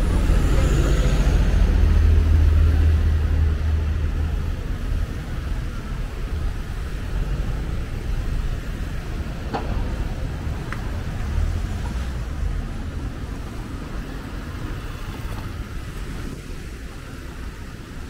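Street traffic: a city bus's engine rumbles loudly as it passes in the first few seconds, then fades away, with cars driving by on the road.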